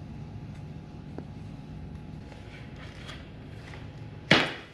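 Faint handling of laminate planks, then one sharp knock about four seconds in as a cut laminate plank is pressed down into place in its row.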